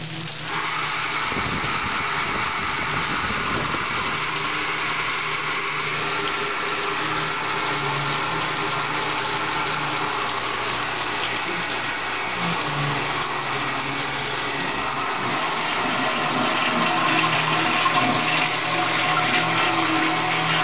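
Layered bathroom noise: a toilet flushing, a shower running and a hair dryer blowing, all playing at once as one continuous rushing, humming din. It grows a little louder about sixteen seconds in.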